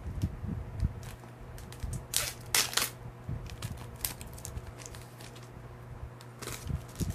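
Trading card packs and cards being handled: scattered clicks and crinkling, with a louder crinkle of the pack wrapper about two to three seconds in and again near the end. A steady low hum runs underneath.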